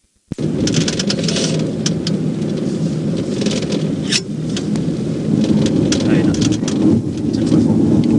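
Steady road and wind noise inside a patrol car travelling at about 53 mph on the interstate, cutting in abruptly just after the start.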